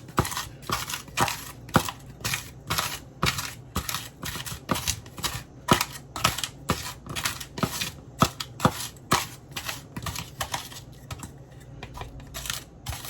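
Strawberries being crushed in a bowl with a kitchen utensil: a steady run of sharp, irregular taps and clicks as the utensil strikes the bowl, about two or three a second.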